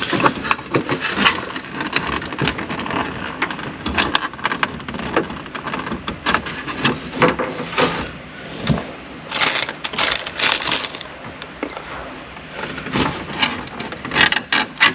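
Irregular clicking, snapping and scraping of plastic dashboard trim and clips being worked loose by hand, with crackly rustling between the snaps.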